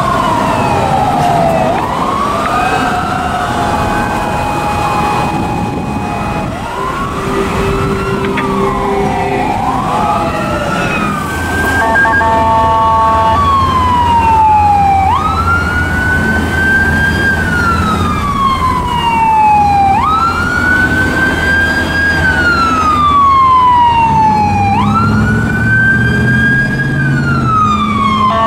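Emergency vehicle sirens: in the first half two wail sirens overlap, broken by a few short steady horn blasts. From about halfway a single electronic wail siren takes over, each cycle rising quickly and falling slowly, about every five seconds, over the low rumble of vehicle engines.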